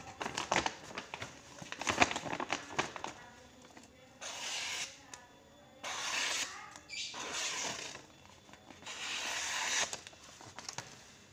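A sheet of paper crinkling and crackling as it is handled, then three separate hissing swishes, each about a second long, as a hunting knife's blade slices through the paper.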